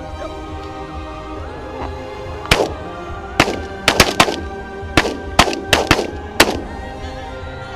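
A rapid volley of about ten shotgun blasts from several guns, starting about two and a half seconds in and overlapping one another, over background music.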